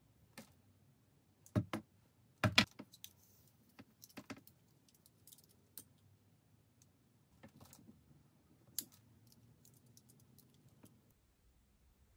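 Light clicks and knocks from handling a curling iron while curling hair, scattered and irregular, the loudest a quick cluster about two and a half seconds in.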